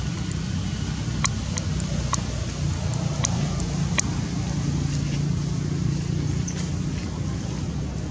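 Steady low outdoor background rumble, with a handful of short sharp clicks scattered through it.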